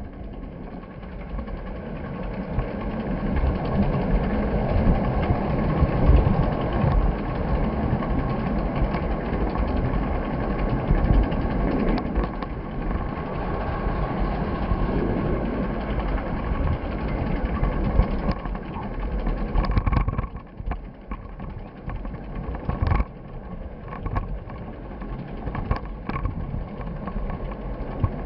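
Steady rumble of a vehicle in motion, with several sharp knocks, most of them in the second half.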